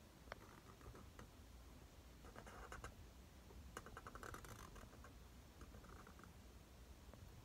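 Faint scratching of a marker pen's felt tip drawn across paper, in three short bursts of strokes about two, four and six seconds in, with a small click near the start.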